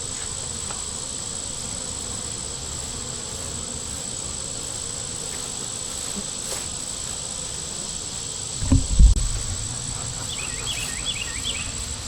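Honey bees buzzing steadily around an opened hive; the colony is agitated and defensive. A loud low thump comes about nine seconds in, and a few short high chirps near the end.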